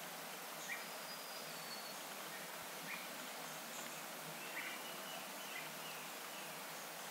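Forest ambience: a steady hiss with a few short, high chirps a second or two apart, the loudest a little under a second in, and a thin high whistle about a second in.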